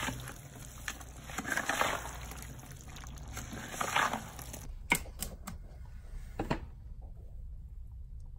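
A thick wet refractory mix being stirred in a plastic bucket: swishing, scraping strokes about every two seconds, then a few sharp knocks and a quieter stretch near the end.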